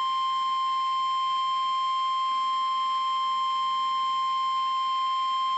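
NOAA Weather Radio warning alarm tone: a single steady, high-pitched tone held unbroken, the alert signal that a weather warning is about to be read.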